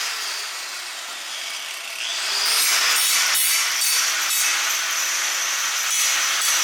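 A power tool grinding or sanding, a steady rasping noise that pulses with repeated passes about twice a second in the middle.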